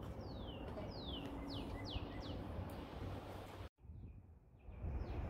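A songbird singing a short run of about five quick whistled notes, each sliding down in pitch, over a steady low outdoor rumble.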